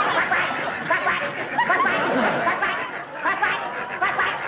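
A woman imitating a duck call with her voice, quacking over and over, mixed with studio audience laughter.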